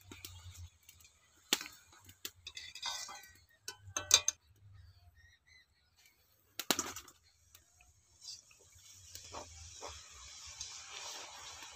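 Wire skimmer clinking against a steel karahi a few times while puffed mung-dal kachoris are turned and lifted from hot oil. From about eight seconds in, a fresh kachori sizzles in the oil, the frying noise building toward the end.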